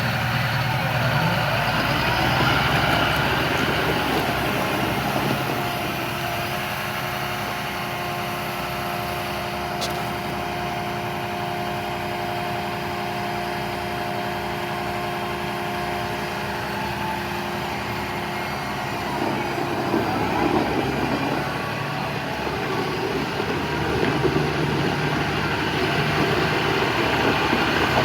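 John Deere 7215R tractor's 6.8-litre six-cylinder diesel engine running at idle, steady in the middle, with a short rise and fall in engine pitch about twenty seconds in.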